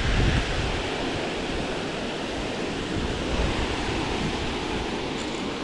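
Water pouring over a concrete dam spillway, a steady, even rushing.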